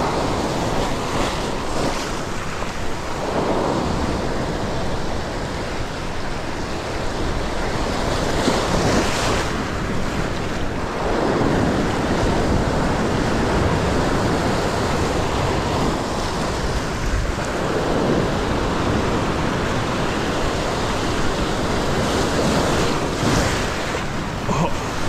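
Ocean waves surging and washing over a rock ledge, the surf swelling and falling back every few seconds.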